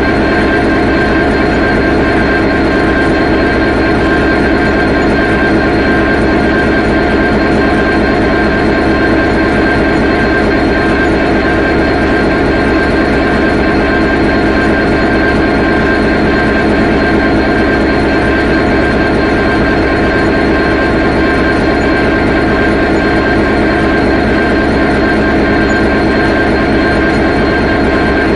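Diesel locomotive idling: a steady, unchanging engine drone with several held tones, no rise or fall in speed.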